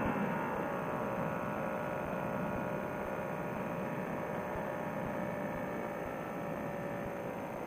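Paramotor trike engine and propeller being throttled back: the pitch falls and the sound drops in the first second, then settles into a steady, lower drone.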